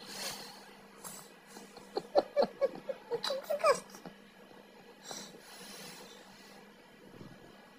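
A person giggling in a quick run of short pulses for about two seconds, starting about two seconds in and rising in pitch at the end, with breathy exhales before and after.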